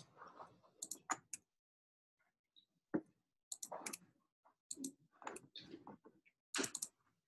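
Faint, irregular computer clicks, some coming in quick pairs or small clusters, as several files are selected one after another in a file dialog.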